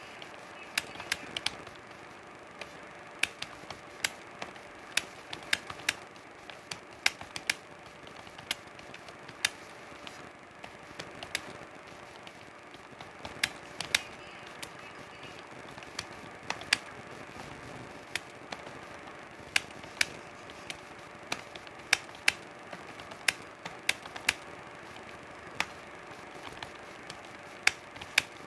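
Computer keyboard keys being typed, irregular sharp clicks about one to three a second, over a steady faint hum.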